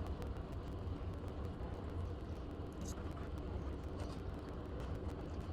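A steady low hum with many faint light clicks of chopsticks and dishes during a meal from a tray.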